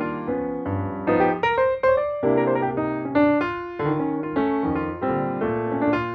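Background piano music: a continuous run of struck piano notes and chords, each ringing and fading.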